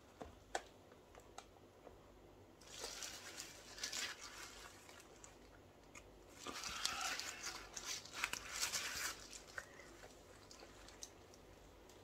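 Paper tissue crinkling and rustling against nitrile gloves while wiping dripped resin off the edge of a mould, in two spells of rustling with small clicks and crackles.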